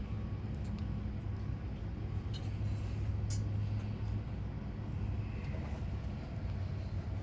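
Heavy diesel truck engine idling steadily, with a few light clicks over it.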